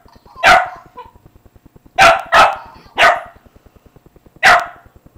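Small dog barking five times at a mechanical toy hamster: single barks about half a second in, two in quick succession about two seconds in, then one more at about three seconds and one near the end, with a faint, fast, even ticking underneath.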